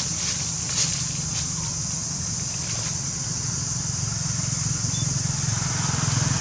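A motor vehicle engine running steadily, growing a little louder near the end, over a steady high hiss. A few faint clicks come in the first three seconds.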